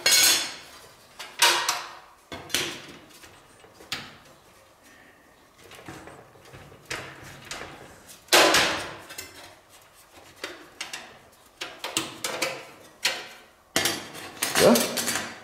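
Irregular knocks and clanks of drive-bay cover plates being pried loose and pulled out of a PC tower's front bays, a few sharp ones ringing briefly.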